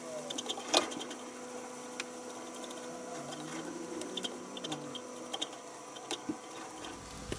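A silicone spatula stirring and scraping cooked rice around a nonstick frying pan, with a few sharp taps against the pan, over a steady low hum.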